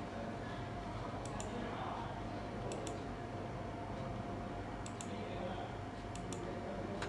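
Computer mouse clicking: four quick double-clicks spaced about one and a half seconds apart while indicator settings are changed in charting software, over a steady room hum.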